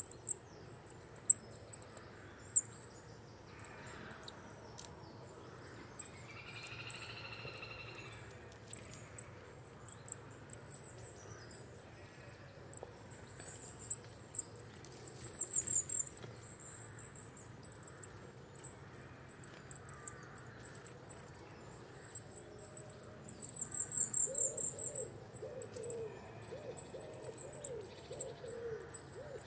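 Coal tit calling: thin, very high-pitched notes and trills, repeated throughout. Near the end a series of low, short arched notes, about two a second, comes from another bird.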